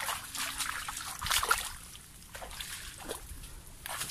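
Irregular splashing and trickling of shallow water and mud, in short uneven bursts that thin out after the first second and a half.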